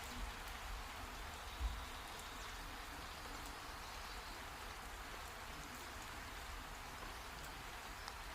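Heavy rain falling steadily, an even hiss of drops, with a few short low thumps in the first two seconds, the strongest about a second and a half in.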